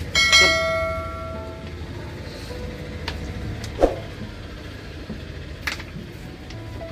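Background music. About a quarter-second in, a bright, chime-like struck note rings out and fades over about a second and a half. A few sharp clicks follow, the loudest just before four seconds in.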